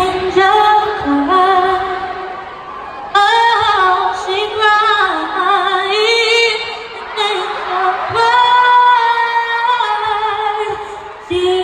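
A female singer's amplified voice singing a slow a cappella ballad in long, held, sliding phrases through an arena sound system, with the room's reverberation behind it.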